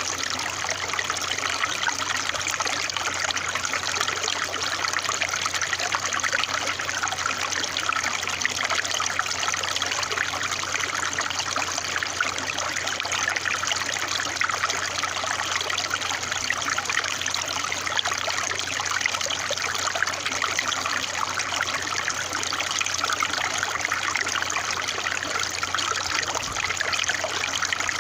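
Running water trickling steadily, with a faint low hum underneath.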